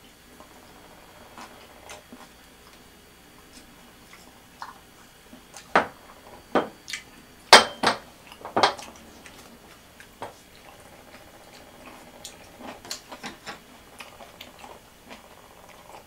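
Wooden chopsticks clinking and tapping against a small ceramic lid and dish, with a cluster of loud, sharp clinks in the middle as the ceramic lid is handled and set down, then scattered lighter taps.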